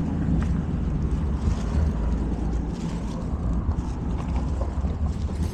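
Steady low rumble and hiss of a car in motion, heard from inside the cabin.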